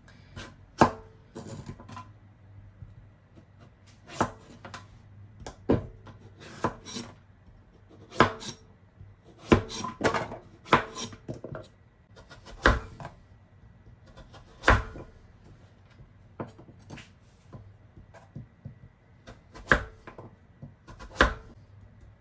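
Kitchen knife chopping a squash on a cutting board: single sharp strikes at an irregular, unhurried pace.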